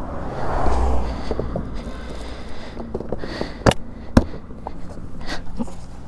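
Handling knocks and clicks as a motorcycle's rear seat is fitted back into place: a brief rustle at the start, then scattered clicks with two sharp knocks around the middle.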